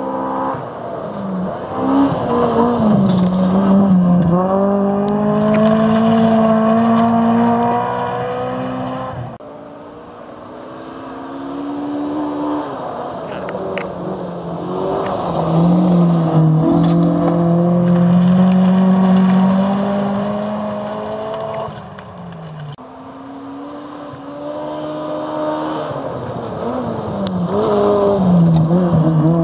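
Rally cars driving flat out on a gravel stage, three in turn with a cut between each. Each engine's note climbs hard and drops in steps at the gear changes as the car comes toward and past.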